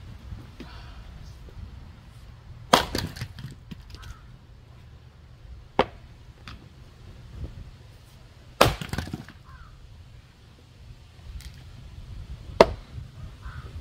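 Heavy splitting maul striking wet, stringy firewood rounds: four hard blows about three seconds apart, the first and third trailing off briefly as the wood cracks and tears.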